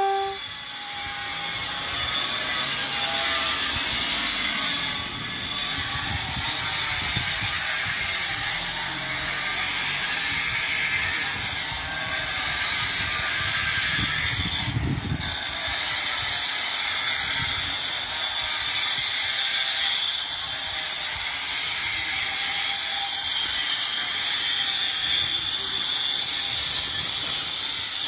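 A machine running steadily with a continuous mechanical rattle, briefly dipping about halfway through.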